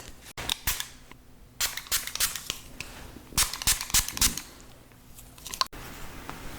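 Close-miked sharp clicks and crackles in three quick clusters, with two brief dropouts.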